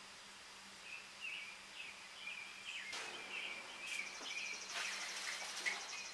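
Faint bird chirping, a quick string of short high calls, with a few light knocks and clicks and a faint high buzz of insects late on.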